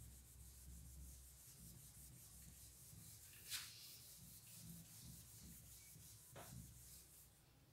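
Whiteboard eraser wiping marker writing off a whiteboard: faint rubbing strokes, with one brief sharper sound about three and a half seconds in.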